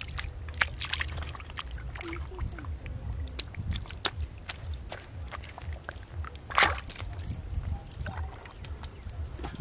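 Hands squelching and slapping in wet mud and shallow muddy water: a string of short wet smacks and splashes, with one louder splash about six and a half seconds in.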